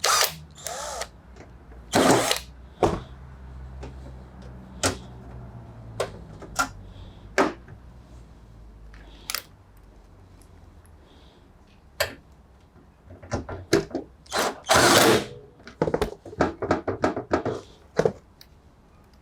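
Tools and metal and plastic parts being handled while a washing machine is put back together: scattered sharp clicks and knocks, clustering into quick rattles near the end. A steady low hum runs underneath from about two seconds in until about nine and a half seconds.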